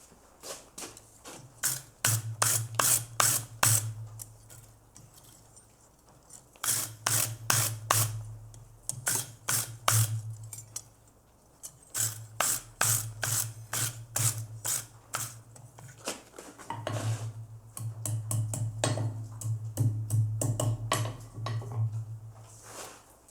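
Rhythmic scraping strokes of a hand tool on metal, about three to four a second, in runs of several seconds with short pauses between them.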